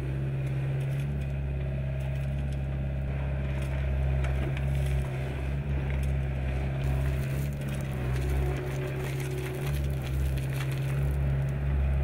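Excavator's diesel engine running with a steady low drone while its bucket digs, with gravel and stones crunching and clattering against the steel.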